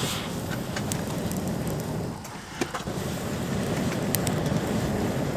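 A campfire fanned with a pocket bellows: a low rushing of air and flame in two long blows, with a short break about two and a half seconds in. Over it the burning wood crackles with sharp pops.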